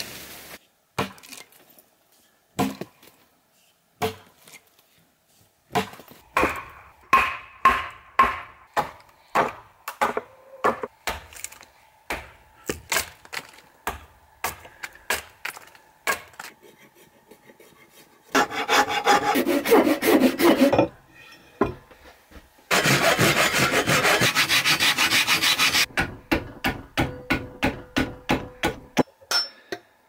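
Axe chopping wood: a long series of sharp strikes, about one or two a second, broken by two stretches of steady noise lasting a few seconds each.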